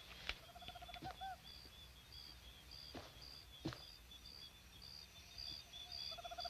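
Jungle birds calling: a high, short chirp repeating a little under twice a second, and a lower rapid trill that comes once near the start and again near the end, with a few faint clicks.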